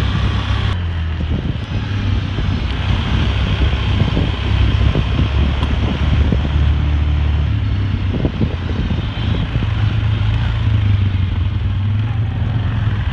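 Steady low rumble of a motor vehicle on the move, with road or wind noise over it.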